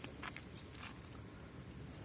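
Quiet outdoor background with a few faint, soft ticks in the first second.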